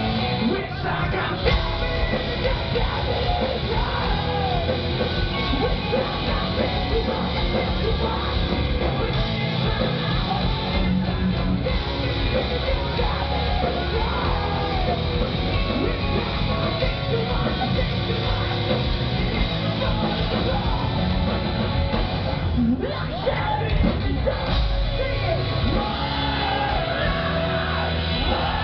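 Rock band playing live at full volume: distorted electric guitars, bass and drums, with a singer yelling and singing into the microphone, heard from within the crowd.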